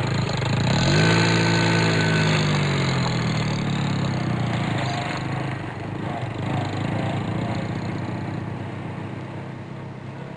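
Supercar engine starting: the revs flare up sharply about a second in, then slowly fall back to a steady idle that grows fainter toward the end.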